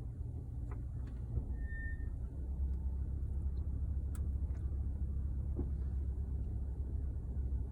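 2019 Subaru Ascent rolling with a steady low rumble, and one short high-pitched brake squeal about two seconds in.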